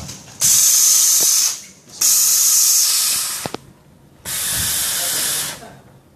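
Three bursts of pressurised gas hissing out of the automatic plate-cutting machine's gas line, each about a second long with short pauses between.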